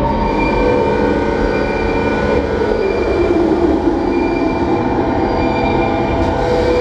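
Dark industrial drone played loud: a dense, unbroken rumble with held, screeching metallic tones, one of them gliding down near the middle. It sounds much like a train's wheel squeal.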